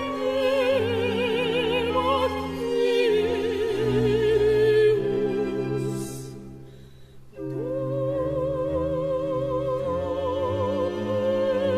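Operatic singing with orchestral accompaniment: a high solo voice with wide vibrato holding long notes. About six to seven seconds in the music fades to a brief lull, then a new held note begins.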